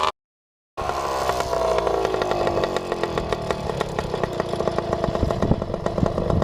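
Jawa Babetta moped's single-cylinder 50 cc two-stroke engine running. After a short dropout in the sound near the start, its pitch falls over about two seconds as the revs drop, then holds steady with a fast rattle of ticks.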